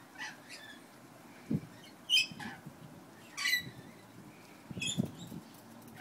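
Rainbow lorikeets giving about five short, high-pitched calls, the loudest about two seconds in, with a couple of soft low thumps in between.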